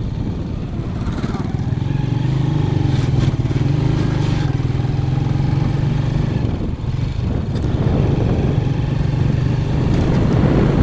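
Small motorcycle engine running under way at a steady pull, heard from the rider's seat. The engine note drops briefly about two-thirds of the way through, then picks up again.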